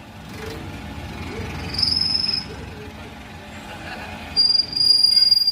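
Steel squealing as it is run through a metal ring roller, a high steady squeal in two stretches, about two seconds in and again near the end, over a low rumble.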